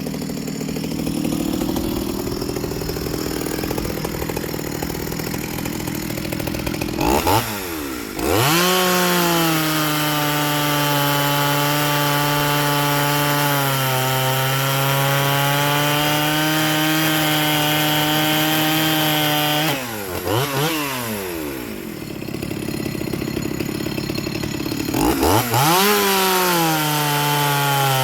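Small 30cc Stihl MS 170 chainsaw running lightly, then revved up about 7 seconds in and held at full throttle through a cut in a log for about 11 seconds, its pitch sagging a little under load. It drops back near 20 seconds and revs up again near the end. The saw's full-chisel chain is very dull.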